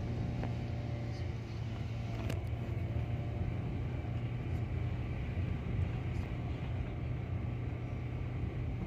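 Car engine and road rumble heard from inside the cabin as the car drives slowly, a steady low hum, with one short knock about two seconds in.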